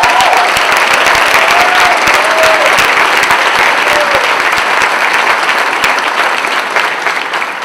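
Large audience applauding, a dense steady patter of many hands clapping that eases off slightly near the end.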